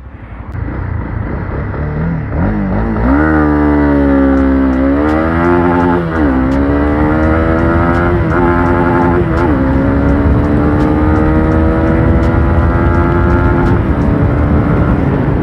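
Honda CB300R's single-cylinder engine under full-throttle acceleration from low speed, the revs climbing in sweeps with a short dip at each of four quick upshifts. It then pulls slowly upward in a higher gear and eases off near the end.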